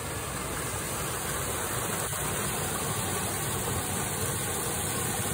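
Creek water running across a concrete road and spilling off its edge as a small waterfall into the creek below: a steady rushing splash that grows a little louder about a second and a half in.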